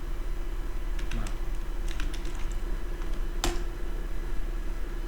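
Computer keyboard being typed on: a few scattered key clicks, the loudest about three and a half seconds in, over a steady electrical hum.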